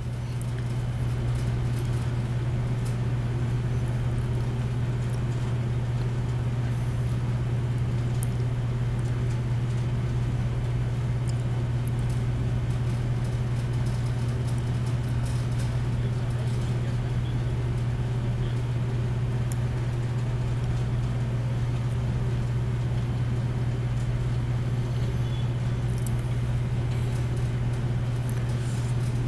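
A steady low hum, like a motor running, unchanging throughout, with faint background noise and scattered light ticks over it.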